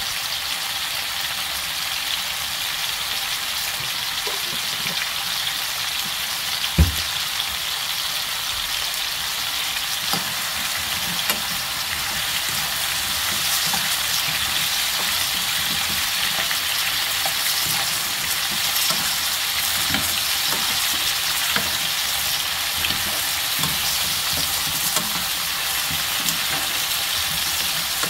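Sliced kabocha squash sizzling steadily as it stir-fries in a frying pan, getting a little louder past the middle. A metal spoon clicks and scrapes against the pan now and then, with one sharper knock about seven seconds in.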